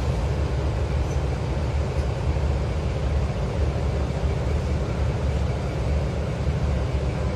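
Steady low rumble of a city bus under way, its engine and road noise heard from inside the passenger cabin.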